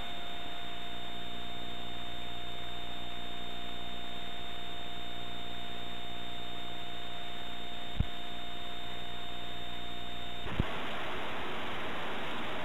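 Playback noise from a blank stretch of VHS tape showing a blue screen: a steady hum with a thin high tone and hiss. A click about eight seconds in, and another about ten and a half seconds in, where the tones stop and only tape hiss remains as the next recording begins.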